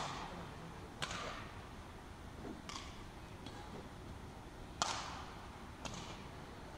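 Badminton rackets striking a shuttlecock in a rally: five sharp smacks, one to two seconds apart, each with an echoing tail in a large hall.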